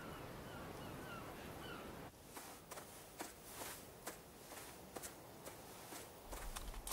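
Outdoor ambience of an open grassy field: a steady wind-like rush with a small bird chirping about twice a second. About two seconds in, this cuts to quieter ambience with scattered soft clicks and rustles.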